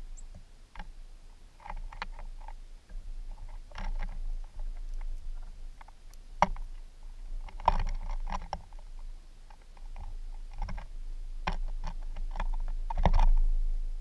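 Irregular clicks and taps of birds pecking and shuffling through seed on a wooden platform feeder close to the microphone, over a steady low rumble. The northern cardinal and black-capped chickadees are feeding. The loudest knocks come near the end.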